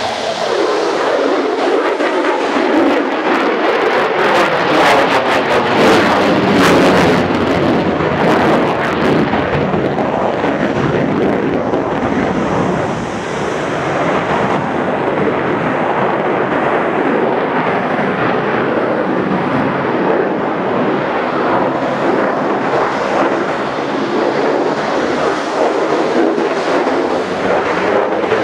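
Lockheed Martin F-35 fighter jet's single Pratt & Whitney F135 turbofan at high power in flight: loud, continuous jet noise that swells with a crackle a few seconds in and eases briefly around the middle.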